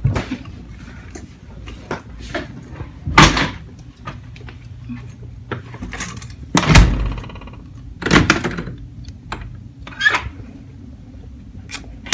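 A hotel room door and its metal security latch being handled: a handful of sharp knocks and thuds, the loudest just past halfway with a short rattling ring after it.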